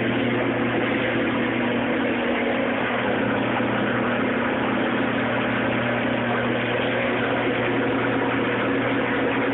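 Garage door opener motor running steadily with a constant hum, then cutting off abruptly.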